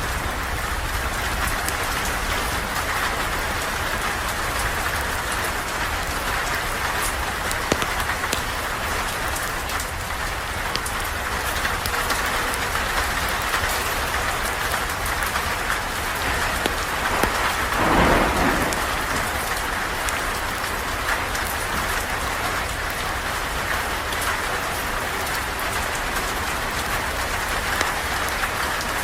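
Steady rain falling and pattering on surfaces, with a brief louder swell about eighteen seconds in.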